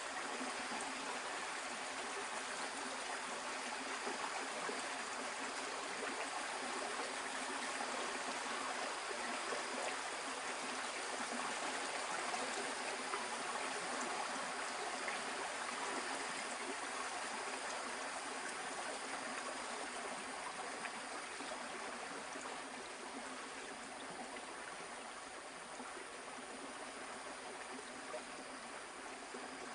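Shallow forest stream flowing steadily over rocks and shallows, a continuous trickling babble, a little quieter near the end.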